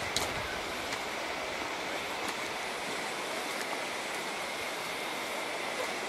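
Steady rushing of flowing water, with a thin, steady high-pitched tone above it and a few faint ticks.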